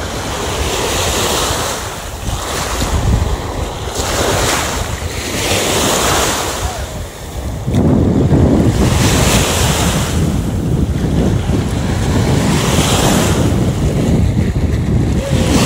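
Small sea waves washing in the shallows, a hissing wash every second or two, with wind buffeting the microphone as a rough low rumble that grows heavier about halfway through.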